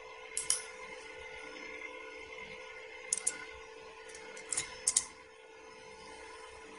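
Faint steady hum with a few light clicks at the computer, scattered: one about half a second in, two around three seconds in, and a small cluster near five seconds.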